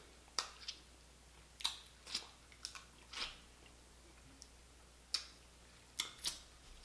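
Small cracks and snaps of boiled blue crab shell being picked apart by hand, mixed with mouth and chewing noises: about ten short, sharp clicks with quiet gaps between them.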